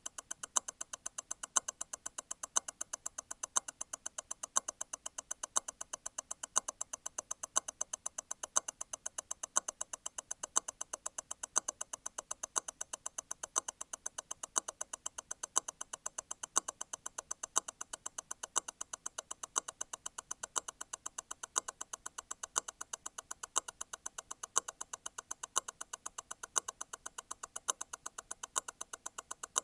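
Grand Seiko T0 Constant-force Tourbillon hand-wound movement ticking at 28,800 vibrations per hour, eight beats a second. A louder click comes about once a second: the constant-force stop wheel disengaging and striking again once every eight beats.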